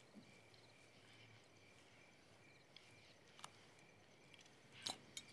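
Near silence: quiet room tone with a faint steady high hum and a few soft clicks, the loudest near the end.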